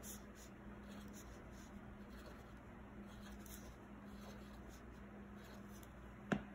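Sharpie felt-tip marker drawing short strokes on watercolour paper, a faint scratching. A single sharp tap near the end.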